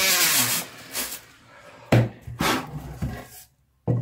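Rotary-tool sanding pad running against a carved wooden beard, its pitch wavering under load, stopping within the first second. Then a few separate knocks and rubs as the carving and tool are handled, the loudest about two seconds in and another near the end.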